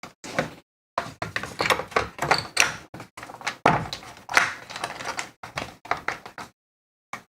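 Handling of a keyboard's plastic case and internal parts during reassembly: a quick, irregular run of knocks, taps and clatter.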